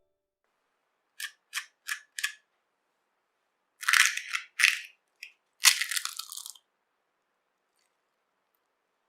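Crisp deep-fried pastry crunching as it is broken apart: four quick light cracks, then two longer, louder runs of crunching about four and six seconds in.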